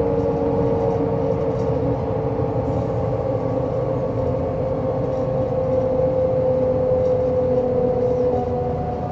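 MAN SL202 CNG city bus being driven: a steady low rumble with a high whine that slowly falls in pitch, then a new, higher whine comes in near the end.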